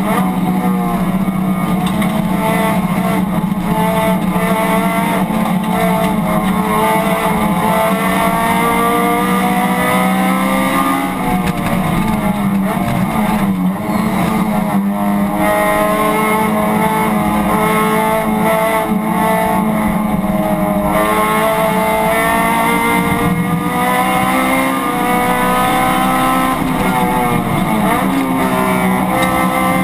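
Honda Civic Si race car's four-cylinder engine at racing speed, heard from inside the cabin, its pitch climbing and falling repeatedly through the gears, with two deeper drops about eleven seconds in and near the end as it slows for corners.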